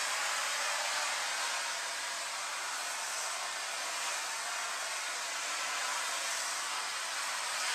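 Central vacuum system with a Hide-A-Hose hose running: a steady hiss of air being drawn in through the hose and wand.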